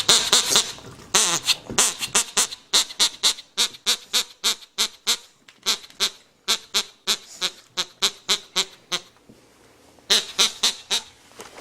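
Pug snorting over and over, a quick run of short loud snorts about three a second that stops about nine seconds in, then a few more about a second later.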